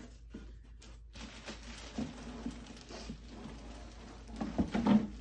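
Packaging rustling and scraping as a box is opened and its contents are handled, a crackling noise with scattered small clicks that grows louder near the end.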